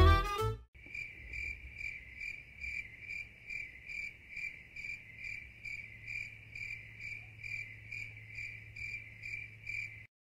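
Swing music with saxophone ends about half a second in. A cricket then chirps in an even rhythm, about two to three chirps a second, over a faint low hum, and stops near the end.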